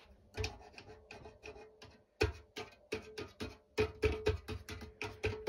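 Freshly strung strings of a Head Black Widow 160 racketball racket being pushed straight with a hand tool: a run of sharp clicks, a few each second, that set the tight strings ringing with a steady pitched ping.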